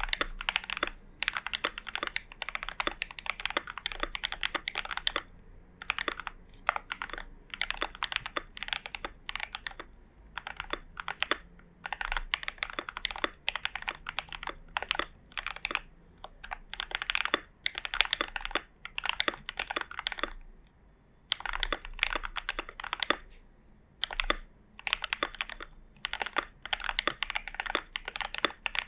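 Glorious GMMK Pro mechanical keyboard with lubed and filmed switches and PBT keycaps being typed on: fast runs of keystrokes broken by a few short pauses.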